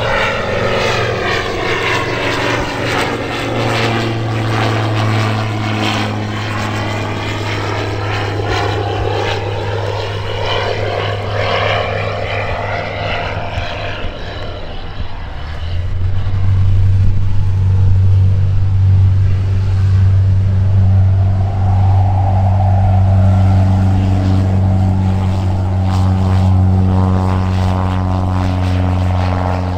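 Propeller aircraft engine running with a steady low drone. In the first half the sound sweeps and shimmers as the plane moves past. About halfway through the drone gets louder and holds steady.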